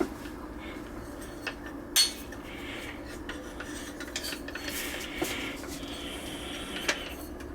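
Scattered metallic clicks and clinks from handling a new Kobalt angle grinder and its parts, the loudest click about two seconds in.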